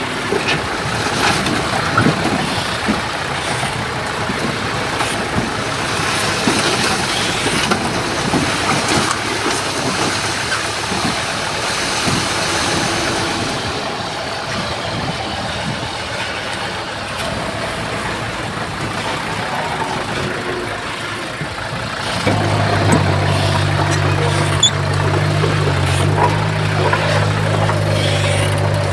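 Heavy earthmoving machinery working: engines running under a noisy rumble with scattered clanks and knocks. About 22 seconds in, a steady, louder low engine drone starts and holds, as a machine runs close by.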